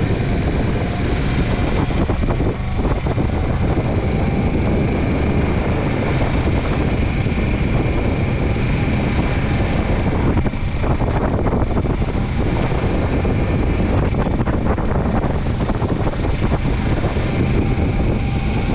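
Steady running noise of a moving road vehicle, with wind rushing over the microphone.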